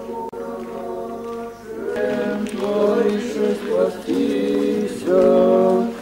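Several voices singing together without instruments, holding sustained notes that change pitch every second or so.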